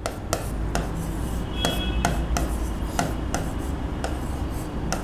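Pen writing on the glass of an interactive display: a string of light taps and scrapes, about three a second, over a low steady hum.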